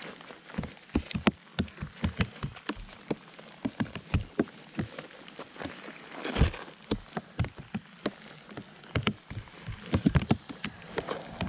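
Irregular water drops and small splashes tapping close to the microphone, several a second at uneven spacing, with one louder splash about six seconds in.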